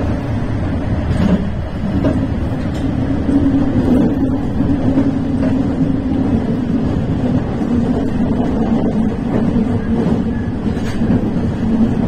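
Electric commuter train running along the line, heard from inside: a steady rumble of wheels on rail with a constant low hum and a few faint clicks.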